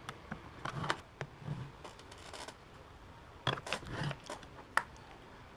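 Light clicks, taps and short scrapes from handling an electric fan motor's metal housing and a screwdriver at a workbench, coming in irregular clusters with one sharp click near the end. The footage plays at double speed, so the handling noises are quickened.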